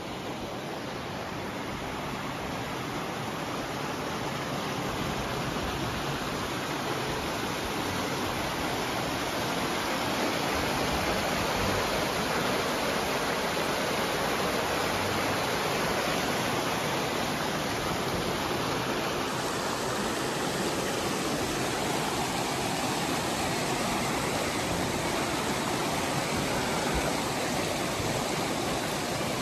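Fast mountain creek rushing and splashing over rocks in a steady wash of whitewater noise, growing louder over the first several seconds and then holding steady.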